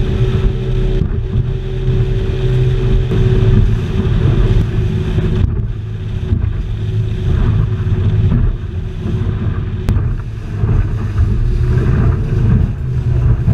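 Yamaha 250 hp outboard driving a rigid inflatable boat at speed: a steady low engine drone under loud wind buffeting on the microphone and water rushing past the hull over a light chop.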